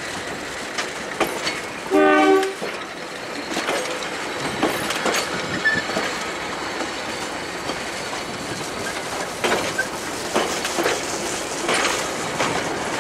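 Passenger carriages being shoved past by a locomotive, their wheels rumbling and clicking over the rail joints with scattered clanks and faint squeals. About two seconds in, a short, loud train horn toot.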